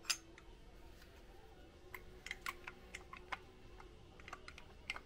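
Light clicks and taps of metal parts being handled on a 2004 Ski-Doo Summit 800's twin carburetor: one sharp click at the start, then scattered clicks through the middle and near the end.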